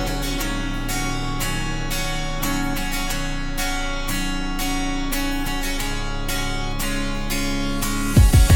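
Background music of strummed acoustic guitar with a steady rhythm; a loud low thump comes near the end.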